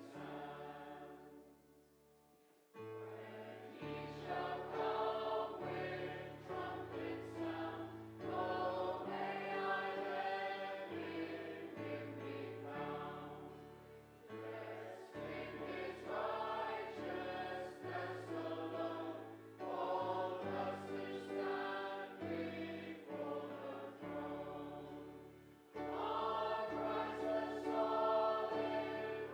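Congregation singing a hymn over held accompaniment chords, in phrases with short breaths between them and a brief pause about two seconds in.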